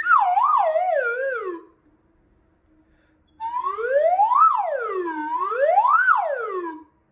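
Metal slide whistle playing pitch-slide patterns for singers to copy: first a wavy glide falling from high to low, then after a short pause two swoops that each rise high and fall back low.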